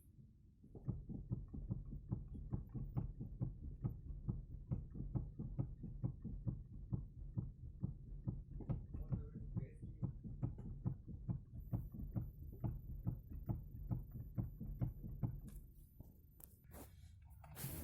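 Knocking in a Nissan Almera's steering as the wheel is turned in short quick movements back and forth: an even series of knocks, about three a second, over a low steady rumble. The knocks stop near the end.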